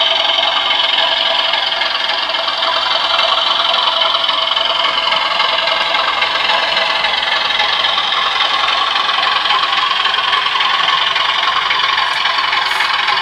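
Sound-fitted 00 gauge Class 37 model diesel locomotive, its ESU LokSound decoder playing South West Digital's English Electric V12 diesel engine sound through the model's small speaker. The engine runs steadily while the model moves along the track, with a few faint ticks near the end.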